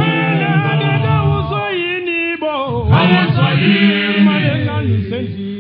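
Male a cappella choir singing isicathamiya: deep bass voices hold long chords under higher parts, with a short break about halfway and a new phrase swelling after it.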